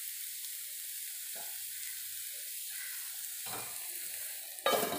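Yardlong beans sizzling in coconut oil in a nonstick frying pan, a steady high hiss. A brief knock about three and a half seconds in and a louder clatter near the end.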